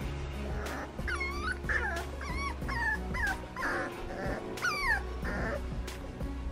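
Young toy poodle puppy whining in its crate: a run of short, high-pitched whines, several falling in pitch, from about one second in to about five seconds. It is crying at being shut in the crate at bedtime.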